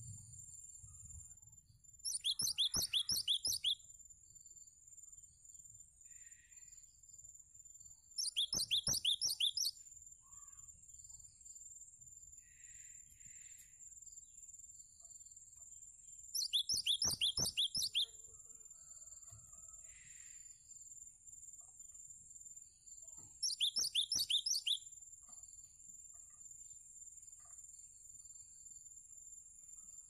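Cinereous tit (gelatik batu) singing: four bursts of rapid, sharp, high repeated notes, each lasting a second or two and spaced several seconds apart. A steady high-pitched hiss runs underneath, with faint chirps between the bursts.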